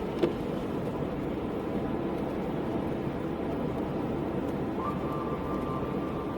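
Steady road and tyre noise of a car driving on a wet road, with one sharp click about a quarter second in.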